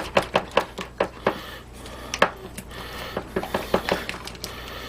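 A utensil stirring a thick mayonnaise-based sauce in a bowl, clicking and scraping against the bowl in many irregular taps.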